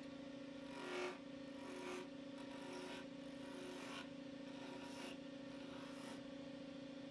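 Wood lathe motor humming steadily while a turning tool cuts into a spinning wooden spindle blank in short scraping strokes, about one a second, the first the loudest.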